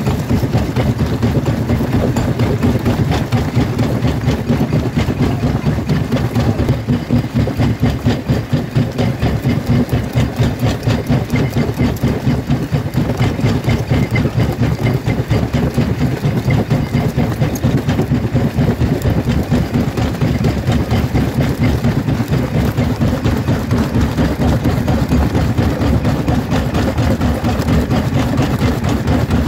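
Jaw crusher running: a loud, low machine rumble that pulses in a fast, regular rhythm as the moving jaw works, with rock cracking between the corrugated jaw plates.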